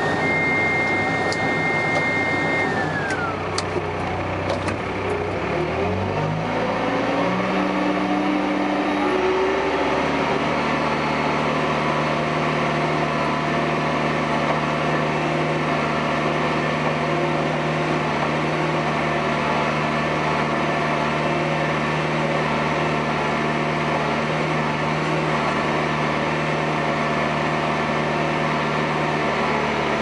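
Case 580 backhoe's diesel engine running, heard from the cab. A high whine falls away about three seconds in, then the engine note climbs in steps for several seconds and settles into a steady run as the machine drives.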